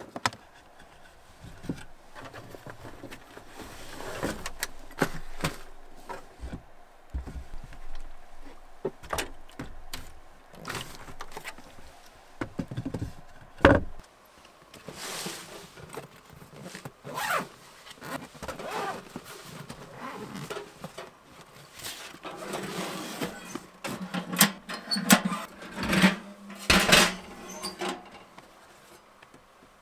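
Camping gear being handled in a van: scattered knocks, thunks and rustling, with a run of louder metal clatter near the end as a small steel wood stove is set down and set up on the floor.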